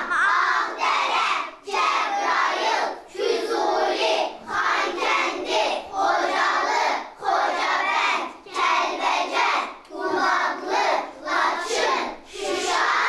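A class of young children reciting together in unison, in a steady sing-song rhythm.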